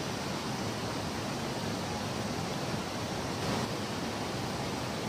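Muddy stream in spate, its fast floodwater rushing in a steady, unbroken hiss.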